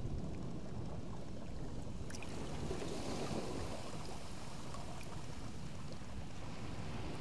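Steady wash of the sea against shore rocks, a low even rumble, with a few faint ticks.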